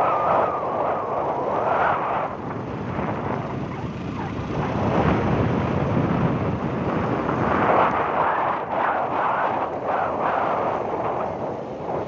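Wind rushing and buffeting over the microphone while moving along a dirt track, a continuous rumbling noise that swells and dips, dropping a little about two seconds in and loudest from about five to eight seconds in.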